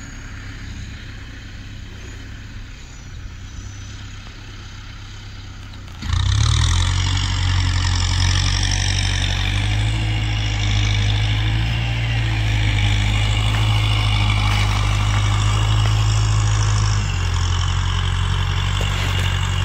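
Tractor engine running steadily. About six seconds in it becomes suddenly much louder and holds a steady drone.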